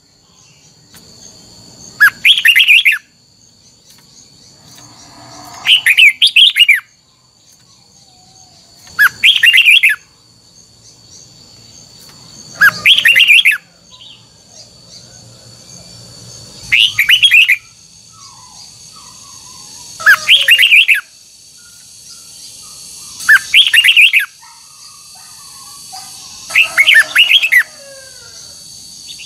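Red-whiskered bulbul singing short, loud song phrases, one about every three and a half seconds, eight in all, with faint steady high tones beneath.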